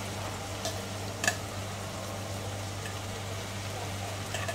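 Stir-fried vegetables sizzling quietly in a wok, with a few light metal clinks from the utensils.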